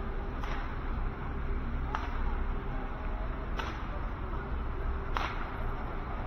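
Street ambience: a steady wash of city and traffic noise, with a short sharp swish or click recurring about every second and a half.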